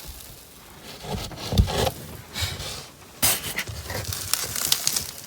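Cardboard box flaps being pulled and folded open, with scraping, rustling and crackling of the stiff cardboard and a low thump about a second and a half in.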